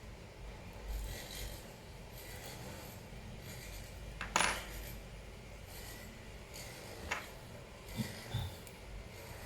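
Small hard parts and tools being handled, with light rubbing and scattered clicks; the sharpest click comes a little under halfway through, and a few softer ones follow near the end.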